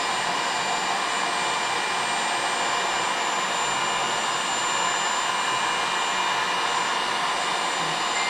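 Heat gun blowing steadily with an even hiss, heating the ATV engine crankcase so the frozen crankshaft bearing will slip in.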